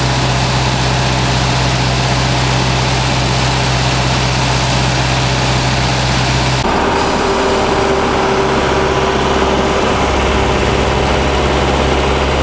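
Truck-mounted spray-injection pothole patcher running, with a steady engine hum under a loud rushing of blown air. The hum's pitch changes about seven seconds in.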